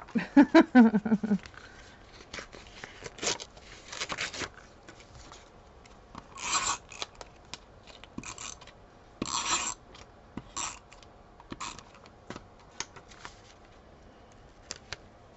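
Sheets of patterned cardstock being handled, slid and rubbed down on a table, with short rasping strokes from an adhesive tape runner laying glue. A brief vocal sound near the start is the loudest thing heard.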